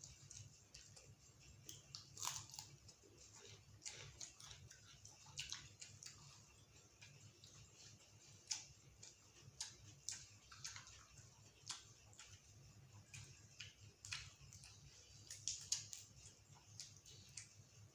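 Close-up eating sounds: a person chewing food with wet, irregular smacks and soft mouth clicks, over a faint steady low hum.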